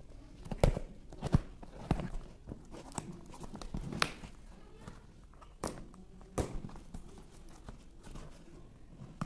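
A small cardboard parcel being handled and torn open by hand: scattered knocks and taps against the box, with rustling and tearing of cardboard and tape.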